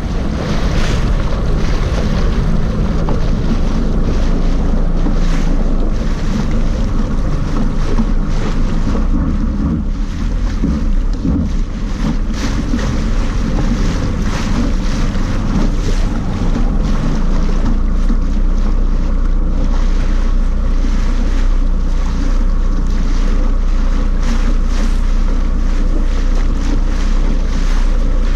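Personal watercraft (jet ski) running under way through choppy water: a steady engine drone, heavy wind buffeting on the microphone, and water splashing against the hull.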